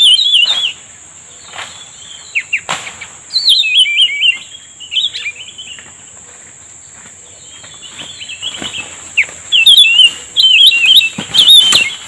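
Cucak rumbai tungging singing its fast, chattering, warbled lure song in three bouts, the last one the longest and loudest, near the end. A steady high-pitched hum runs underneath, and a few sharp clicks come near the end.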